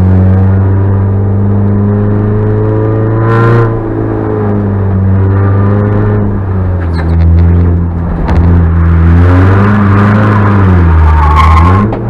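Peugeot 106 rally car's engine heard from inside the cabin at racing speed, revs climbing and then falling about three and a half seconds in, rising and falling again several times and dipping briefly near the end. A few short knocks come about two-thirds of the way through.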